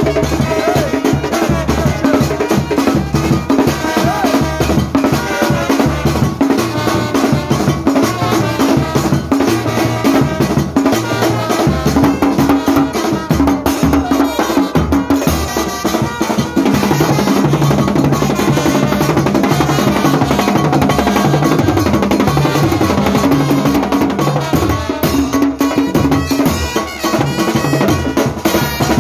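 Ghanaian brass band playing loud, continuous music, with brass horns over snare and bass drums keeping a steady beat.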